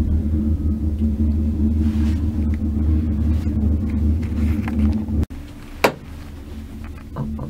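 Steady low rumble and hum of a gondola cabin running along its cable. About five seconds in it drops suddenly to a quieter hum, and a single sharp knock follows.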